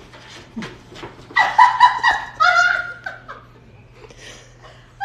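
A person's high-pitched laughter in two loud bursts about a second and a half in, dying away soon after. Before it, light scattered rustling of a paper bag as a cat plays in it.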